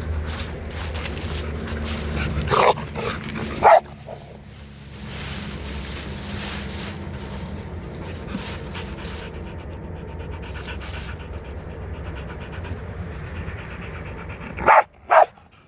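A dog panting hard while it plays, with two pairs of short, loud barks: one pair about two and a half seconds in and another near the end.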